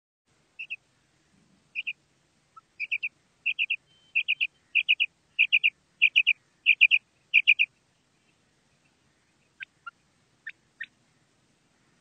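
Common quail calling: short, high clipped notes, first in pairs and then in quick triplets, about ten groups growing louder over several seconds, then stopping and followed by four faint clicks. A lure recording billed as the female quail's call, used to draw male quail in for hunting.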